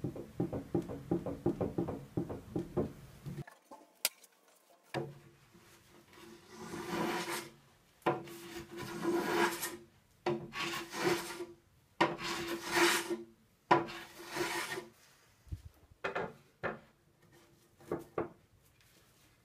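A hand rubbing briskly over a solid birch board. It starts with a quick run of small scratchy ticks, then goes into a series of long rasping strokes of about a second each, with shorter strokes near the end.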